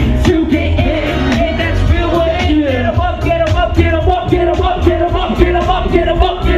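Hip hop music with a heavy bass beat, hi-hats ticking, and a vocal line over it.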